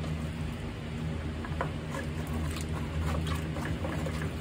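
A wooden spatula scraping and stirring along the bottom of a stainless steel pot of beef and vegetables in red wine, a run of irregular scratchy scrapes and clicks. This keeps the flour-thickened sauce from scorching on the pot bottom. A steady low hum runs underneath.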